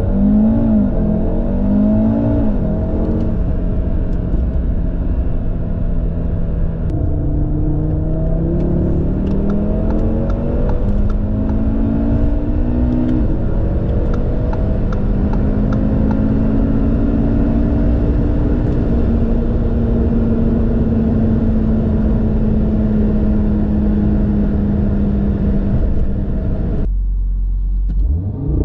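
Stage 1-tuned Audi RS3's turbocharged five-cylinder, with an OPF-delete and resonator-delete exhaust, under hard acceleration. The revs climb and drop back at gear changes about 3, 7 and 13 seconds in, then pull long and steady in a high gear. Near the end the sound cuts off abruptly and a new run starts climbing.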